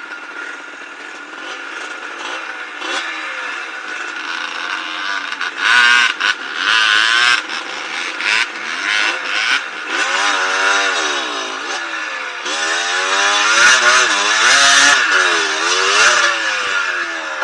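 Yamaha DT125 single-cylinder two-stroke dirt bike engine under throttle on the trail, its revs rising and falling again and again. It gives sharp throttle blips about six to seven seconds in, and a longer stretch of hard revving in the second half.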